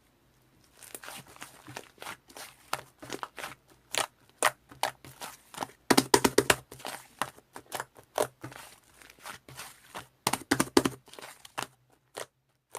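Fluffy slime being pressed and worked by hand, giving an irregular run of sharp crackling pops and clicks that starts about a second in and thins out near the end.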